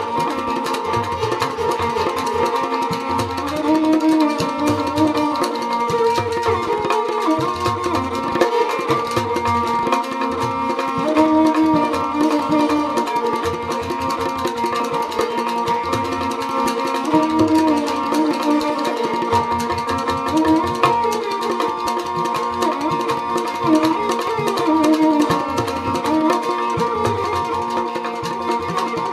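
Rajasthani folk instrumental: a kamaicha plays a winding melody over the steady twanging drone of a morchang jaw harp, with a hand drum keeping a regular beat.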